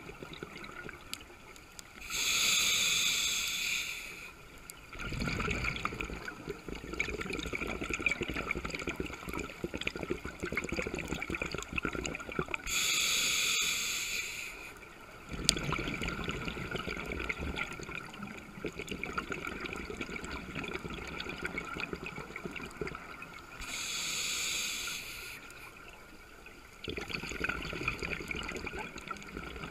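Scuba diver breathing through a regulator, heard underwater through the camera housing. Three loud hissing bursts come about ten seconds apart, with a lower bubbling rumble between them.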